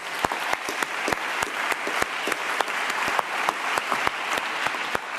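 An audience applauding: many hands clapping steadily, with single sharp claps standing out from the crowd of claps.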